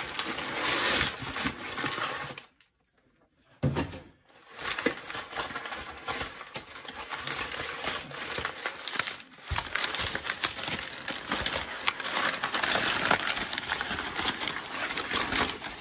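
Crumpled kraft packing paper rustling and crinkling as cardboard boxes are dug out of a shipping box. The noise stops for about a second, two and a half seconds in, and a thump follows.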